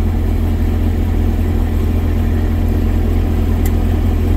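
Vehicle engine running steadily at low speed, heard from inside the cab as a constant low drone.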